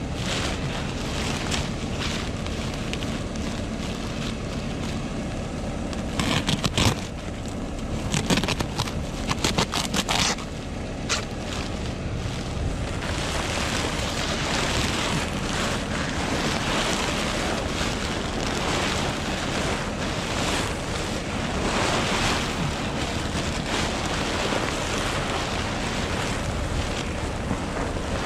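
Wind rushing over the microphone, with a tractor engine running underneath. A quick run of knocks and clatters comes about six to ten seconds in, and the wind rush gets stronger from about thirteen seconds on.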